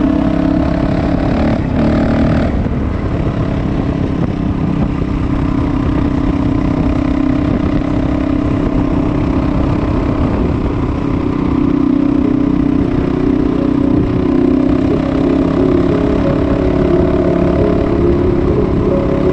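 Vehicle engine running steadily while under way, a continuous drone over a low rumble of road and wind noise.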